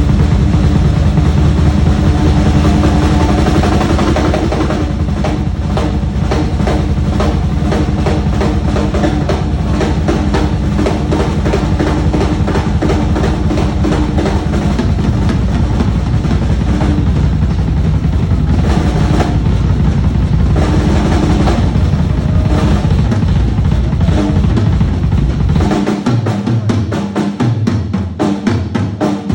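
Drum kit played in a fast, loud solo: dense rapid strokes on bass drum and snare under a constant cymbal wash. About three-quarters of the way through, the low drumming thins into a choppier pattern.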